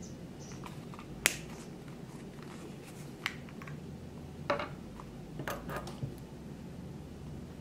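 A handful of separate sharp clicks and taps from small hard objects being handled, the loudest a little over a second in and a quick cluster of them near the end.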